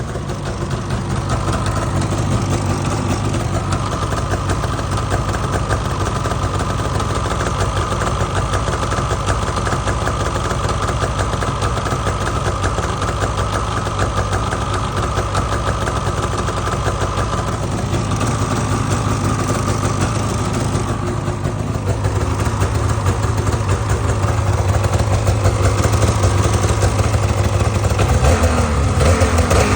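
2019 Polaris 850 Patriot two-stroke twin snowmobile engine idling steadily with a ticking sound, which the owner suspects is an exhaust valve tick. It runs a little louder for the last third.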